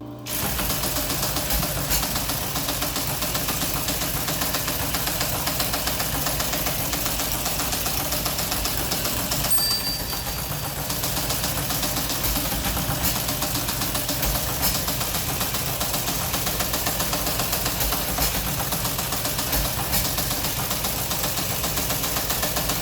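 Teletype Model 15 teleprinter running: its motor and print mechanism make a steady, loud clatter of rapid clicks that starts abruptly, with a brief high tone about ten seconds in.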